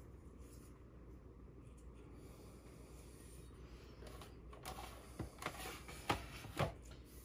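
Quiet room hum, then from about four seconds in a few light knocks and scuffs as a digital kitchen scale is pushed across a cutting mat.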